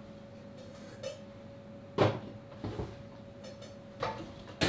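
Kitchen clatter from someone working at a counter: a sharp knock about two seconds in, lighter knocks and clinks after it and a cluster near the end, over a faint steady hum.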